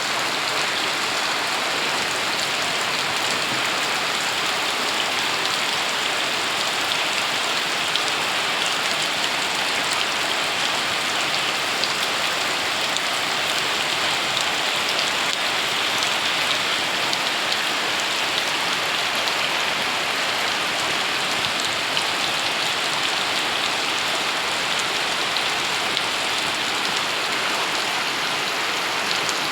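Heavy rain pouring down steadily, an even hiss of drops on surfaces with scattered sharper drop ticks.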